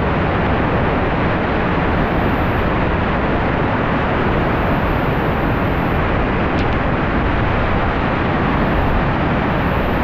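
The Cascate del Varone waterfall pouring into its gorge: a loud, steady rush of falling water that does not let up.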